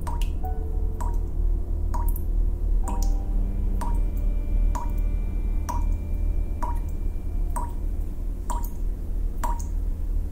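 Background music: sustained low chords under a steady ticking beat of about one tick a second, the chord changing about three seconds in.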